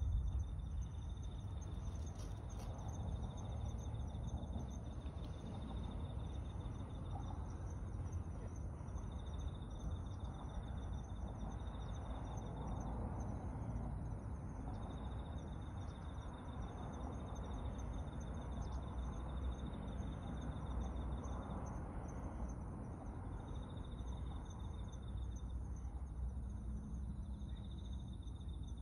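Insects trilling at a high, even pitch in stretches of a few seconds with short breaks between them, over a steady low outdoor rumble.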